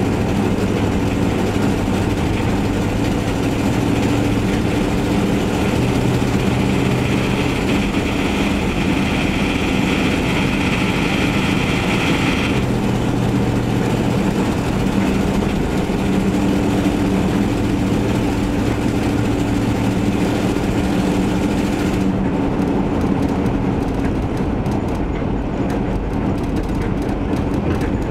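1977 Chevy van's engine and leaking exhaust running loudly under way, its pitch rising and falling with engine speed. The leak comes from a failed exhaust donut gasket and rusted-through mufflers.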